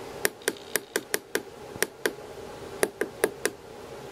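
Tactile push-buttons on a DSO138 oscilloscope kit clicking as they are pressed over and over to step the time base, about a dozen sharp clicks in three quick runs.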